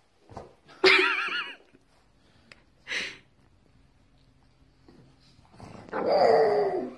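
Pug vocalising in rough play: a loud wavering cry about a second in, a short yip about three seconds in, and a longer call that falls in pitch near the end.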